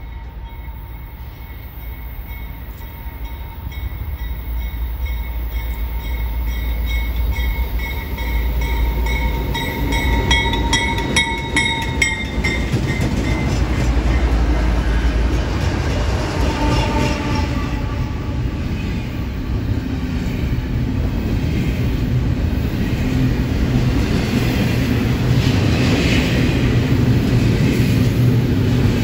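A BNSF diesel freight train approaches and passes close by: the lead locomotives go past, then a long string of double-stack container cars rolls by, and the rumble grows steadily louder. A steady high tone sounds over roughly the first twelve seconds.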